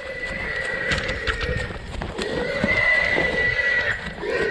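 Wild hog squealing in long, wavering, high-pitched squeals.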